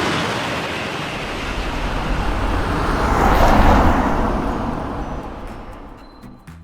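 A train passing by: a rushing rumble that swells to its loudest about three and a half seconds in, then fades away. Music comes in near the end.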